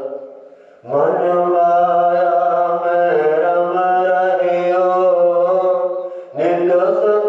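A man's voice chanting Sikh scripture (Gurbani) in long, drawn-out phrases: a short pause about a second in, one long phrase, then a brief breath and the next phrase begins near the end.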